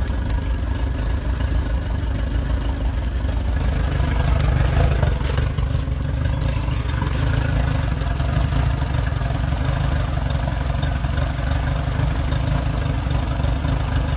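Yamaha T50TLRV 50 hp four-stroke outboard motor idling unevenly, the idle speed jumping around as if the engine were misfiring.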